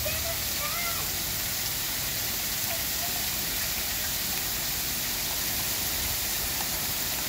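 Heavy rain and hail pelting down hard and steadily: a dense, even hiss that does not let up.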